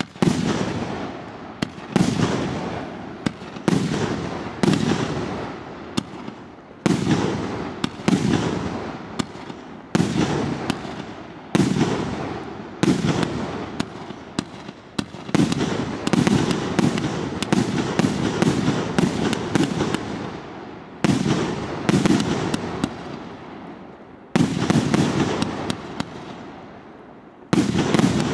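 A 1.5-inch, 81-shot consumer firework cake firing its shells in quick succession. Sharp bangs come about once a second, each fading out before the next, with a few slightly longer pauses between shots.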